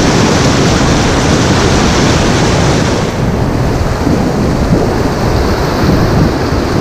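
Loud rushing and churning of a whitewater rapid right at the microphone as an inflatable kayak runs through it, the water splashing around the boat; the hissing top eases a little about three seconds in.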